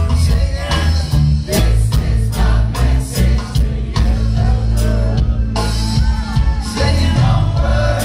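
Live reggae band playing: strong bass line, drums keeping a steady beat, guitars, and a lead singer with backing vocals.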